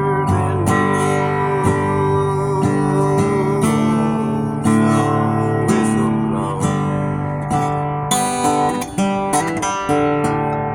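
Acoustic guitar playing plucked notes and strums, with one long wavering note held over the first few seconds.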